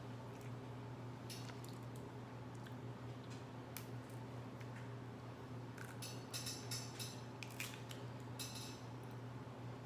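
Crawfish shells being cracked and peeled by hand: scattered crackling snaps and clicks, thickest about six to seven seconds in, over a steady low hum.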